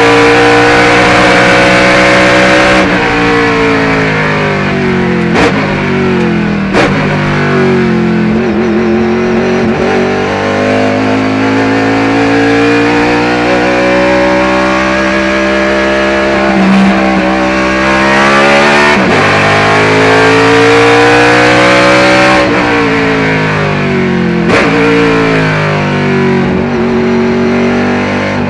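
1976 Chevrolet IMSA Monza race car's V8 engine heard from inside the cockpit at racing speed, revving hard and easing off through the corners. Its pitch drops sharply several times at gear changes and throttle lifts, then climbs back up.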